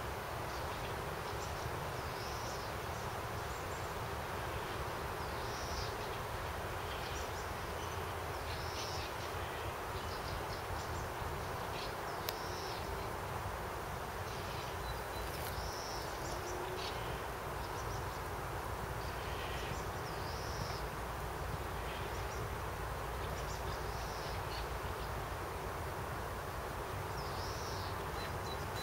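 Garden ambience: a steady low rumble with short, high chirps every few seconds.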